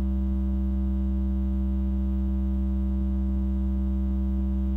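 Steady low electrical hum with a buzzy stack of overtones, typical of mains hum or a ground-loop buzz picked up in the recording's audio.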